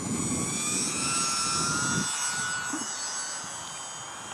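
Electric motors and propellers of several E-flite UMX Turbo Timber micro RC planes whining at different pitches, some slowly rising and falling. A low rumble underneath stops about two seconds in.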